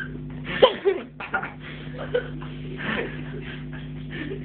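Two people scuffling and wrestling over a bottle: short grunts, breathy laughs and rustling, with a sharp loud cry about half a second in. A steady low hum runs underneath.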